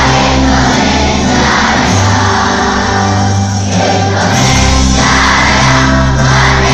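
A large group of voices singing together to music, in long held notes over a strong bass line that changes about every two seconds.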